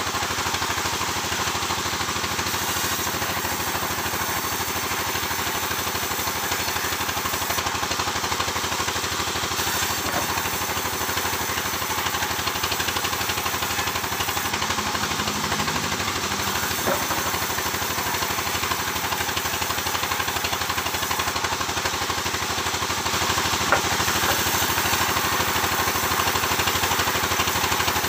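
Sawmill machinery running steadily, a dense, even mechanical noise that gets a little louder over the last few seconds.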